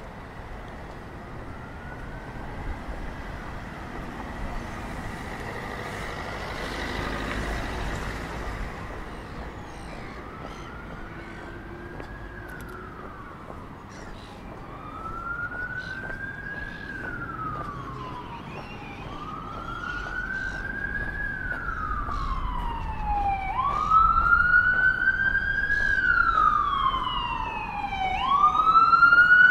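Emergency vehicle siren wailing in slow rising and falling sweeps, each about four seconds long, growing steadily louder over background street noise.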